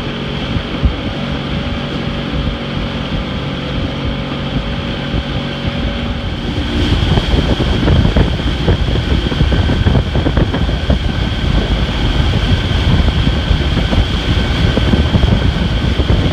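Small outboard motor running with the boat under way, with wind buffeting the microphone. About seven seconds in the sound gets louder and rougher as the wind rush increases.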